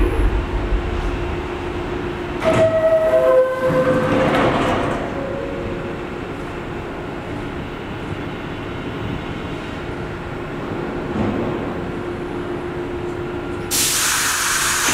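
R62A subway car's door chime sounds two descending tones, then the doors slide shut. The stopped train hums steadily, and near the end a rush of noise rises as the train starts to pull out.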